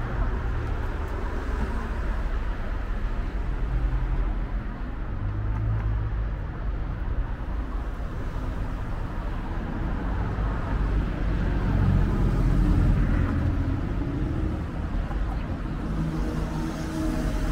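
Road traffic: car engines running with a low steady rumble, as vehicles pass. It swells as one grows louder about two-thirds of the way through.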